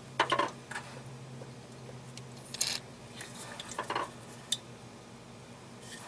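A few short metallic clinks and clatters of hand tools and metal parts being handled. The loudest comes right at the start, and a handful of smaller ones follow about two and a half to four and a half seconds in.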